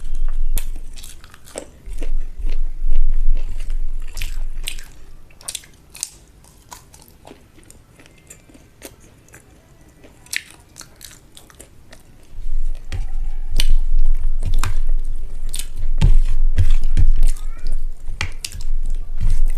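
Close-miked chewing and wet mouth smacks of someone eating rice and egg curry. The chewing is loud for the first few seconds, drops to a quiet stretch of scattered small clicks in the middle, then comes back loud about two-thirds of the way through.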